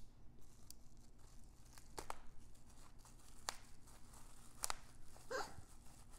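Plastic bubble wrap crinkling and tearing as a utility knife cuts it open, with three sharp clicks spread through it.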